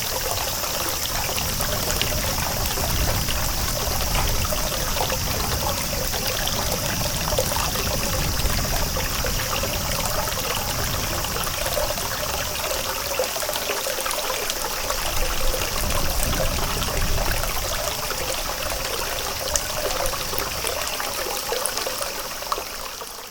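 Running water trickling and pouring steadily, fading out near the end.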